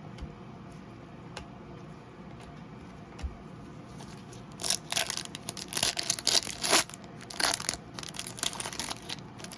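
A trading card pack's foil wrapper being roughly torn open and crinkled, in loud bursts of tearing and crumpling from about halfway in, after a few light clicks of card handling.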